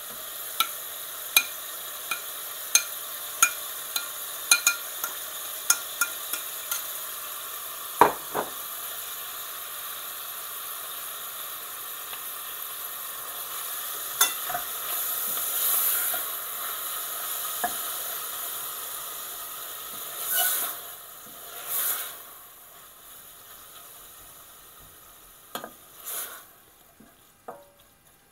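Canned tuna frying in hot oil in a stainless steel saucepan, sizzling steadily as it is stirred with a wooden spoon. Over the first seven seconds a spoon clinks sharply, once or twice a second, as the tuna is scraped off a plate into the pan, with one heavier knock about eight seconds in; the sizzle quietens near the end.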